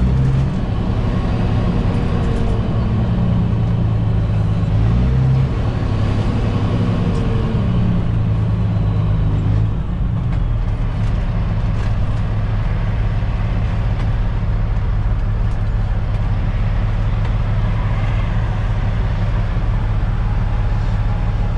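Caterpillar C15 diesel engine of a straight-piped Kenworth T800 semi heard from inside the cab, pulling up through the gears: the engine note climbs, drops at a gear shift about five seconds in, climbs again, then falls to a lower, steady running sound from about ten seconds in as the truck slows.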